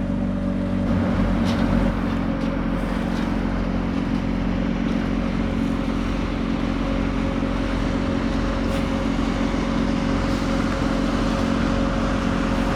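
A sailboat's auxiliary engine running steadily at an even speed as the boat motors along in calm water, a constant drone with a faint steady whine above it.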